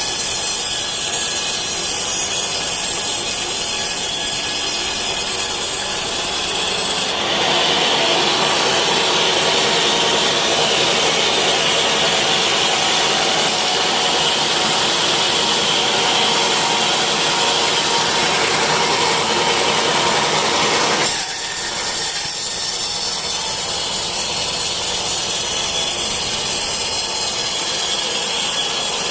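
Sawmill saw sawing teak, a steady loud rasping run. About a quarter of the way in it grows louder and higher, then drops back suddenly about two-thirds through, as the blade goes through the wood and comes out of it.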